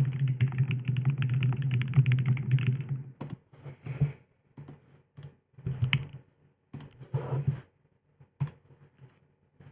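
Aeris65 mechanical keyboard with SWK Mocha switches being typed on: a fast, steady run of keystrokes for about three seconds, then scattered single presses and short bursts of keys.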